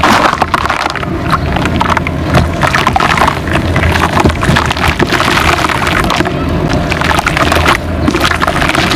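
Wet red dirt mud being mixed into a thick paste, a steady run of squelching and crackling.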